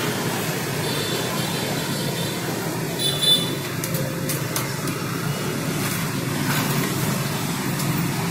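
Steady road traffic noise, a low hum of passing vehicles, with a brief high-pitched sound about three seconds in.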